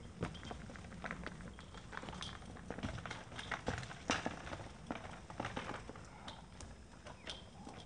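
A child's small bicycle rolling over dry dirt and grit, its tyres crunching with irregular clicks and crackles that are loudest as it passes about four seconds in.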